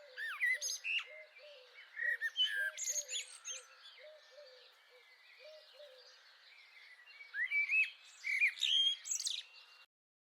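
Common blackbird singing: three bursts of fluty, gliding phrases that end in high twittering, with chirps of other birds around them. A short low note repeats about three times a second through the first half. The recording cuts off abruptly near the end.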